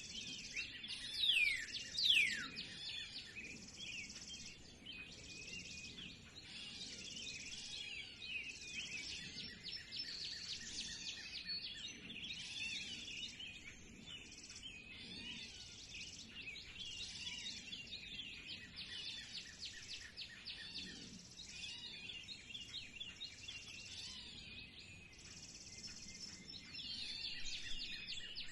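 Spring chorus of many songbirds chirping and twittering at once. Two loud whistles sweep steeply down in pitch about one and two seconds in.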